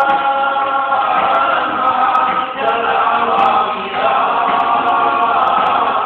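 A small group of men singing a worship song together, holding long notes that move to new notes every second or so.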